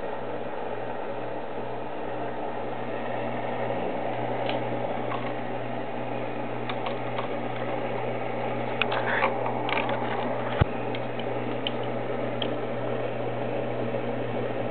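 Steady hum and hiss of reef-tank equipment such as pumps, with scattered light clicks through the middle and one sharp knock about ten and a half seconds in.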